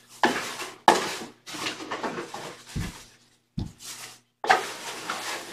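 A series of knocks, thumps and scuffs as a small footstool on casters is pulled across the carpet and set down, with one deeper thump near the middle.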